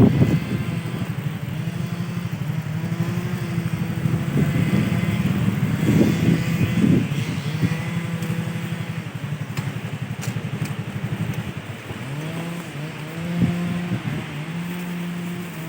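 A motor vehicle's engine runs steadily, its pitch shifting up and down with speed, with a few stepped rises in pitch near the end.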